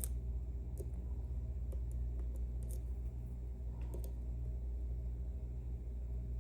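Faint, scattered metal clicks of lock picks working the sliders inside an Ezcurra C23 slider lock, over a steady low hum.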